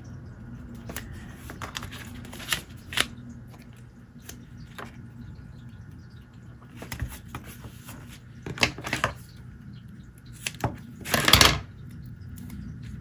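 Paper and tape being handled on a cutting mat: scattered light taps and rustles as paper is folded and pressed down, with a louder, longer paper rustle near the end. A low hum runs under it.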